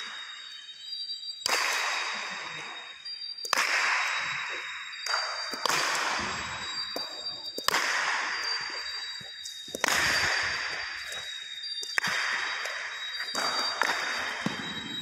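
Cricket bat striking the ball as sweep shots are played, a sharp crack about every two seconds, each one ringing on in the echoing hall. A faint steady high whine runs underneath.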